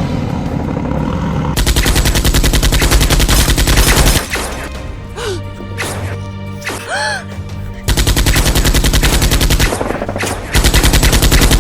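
Rapid automatic gunfire sound effects in three long bursts, the first about a second and a half in, the last near the end, over background music.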